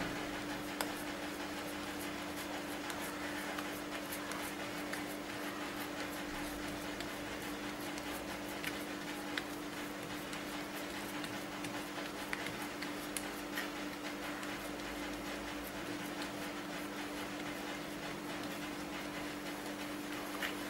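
Fingers pressing and spreading rice-flour dough thin on an oiled banana leaf, making faint soft rubbing sounds and scattered light ticks over a steady low hum.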